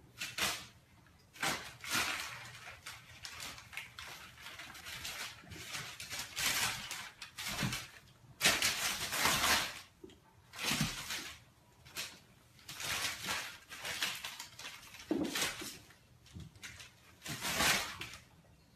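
Crumpled brown paper crackling and rustling in irregular bursts as kittens pounce and scamper across it, the longest burst about eight and a half seconds in, with a few low thumps.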